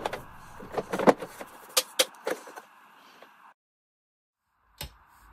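Scattered clicks and knocks from hands working on a Roland Alpha Juno 2 synthesizer's case during reassembly, over a steady hiss. The sound cuts to dead silence about three and a half seconds in, with one more click near the end.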